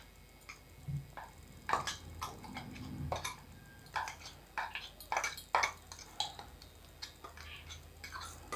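A spoon scraping ground peanut powder out of a steel mixer jar into a glass bowl: faint, irregular scrapes and light clinks of spoon against steel and glass.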